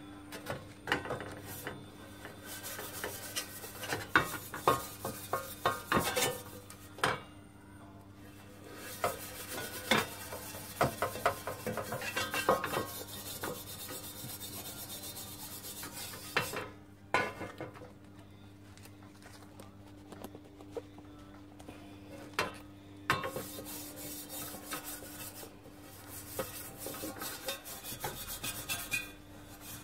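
Steel-wool scrubber pad held in pliers rubbing and scraping around the inside of a hot copper pan, wiping tin and flux over the lining during retinning, with occasional clinks of the pan and short pauses in the stroking.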